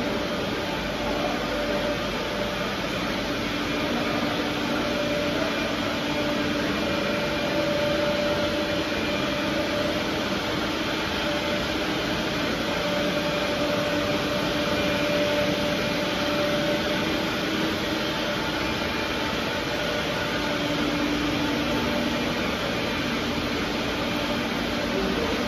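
Industrial machinery running steadily: an even whir with a low, faintly wavering hum.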